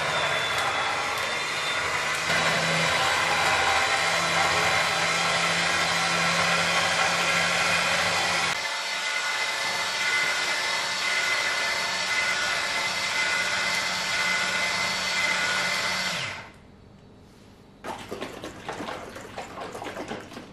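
A compact vertical slow juicer's motor runs steadily while juicing cucumber, pineapple and apple, a continuous hum with a whine. It stops about 16 seconds in, and after a short lull there are a couple of seconds of irregular clattering noise.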